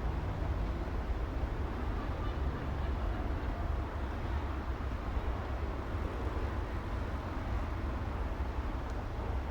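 City street traffic: a steady, even rumble of vehicles, heaviest in the low end, with no single passing vehicle or horn standing out.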